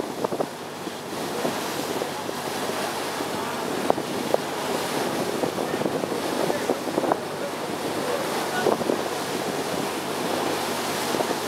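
Water rushing and splashing along the hull of a moving boat, with wind buffeting the microphone. A steady wash with a few sharper splashes.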